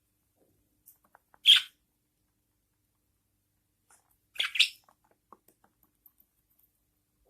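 Budgerigars giving short, high chirps: one about one and a half seconds in and a quick pair a little past four seconds, with a few faint small clicks between.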